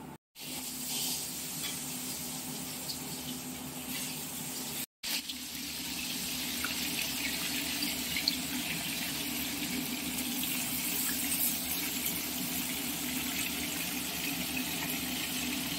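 Hot mustard oil sizzling steadily in a kadai, heated for frying fish. The hiss cuts out for a moment twice, near the start and about five seconds in.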